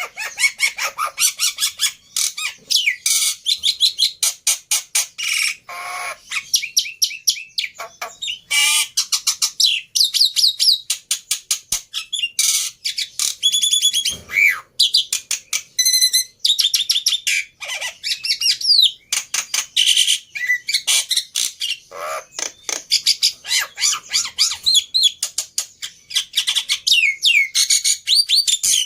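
A jalak (Indonesian starling) singing a long, busy song of rapid chirps, whistled glides and fast rattling trills, with hardly a pause: the kind of full song played as a lure to get other jalak to sing.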